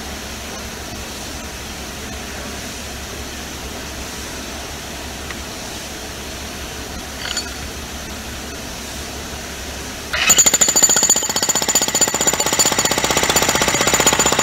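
A steady low background hum, then about ten seconds in a Harbor Freight Hercules 15-amp electric breaker hammer starts and hammers rapidly and loudly.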